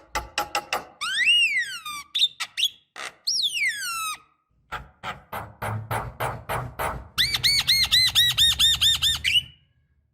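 Javan myna singing a varied song of clicks, harsh chattering notes and long rising-and-falling whistles, then a fast run of repeated arched whistled notes, about six a second, that stops shortly before the end.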